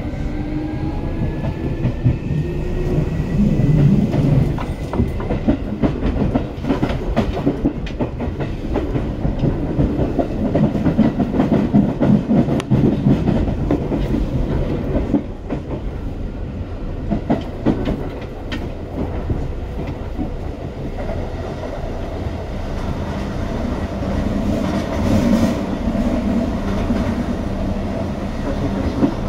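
Seibu 2000 series electric train running, its traction-motor whine rising and fading out just after the start. Then a steady rumble with wheels clacking over rail joints, and a steady motor hum comes back in the last part.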